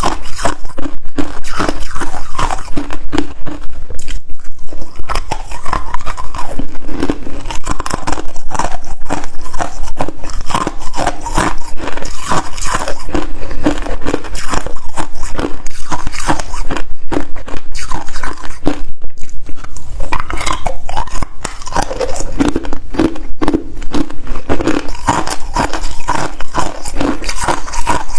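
Close, loud chewing and crunching of freezer frost ice: a rapid, continuous run of crisp crunches, with short pauses about four seconds in and again near the middle.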